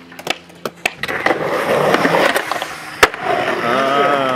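Skateboard wheels rolling over concrete, with scattered clicks and clacks of the board and one sharp, loud clack about three seconds in.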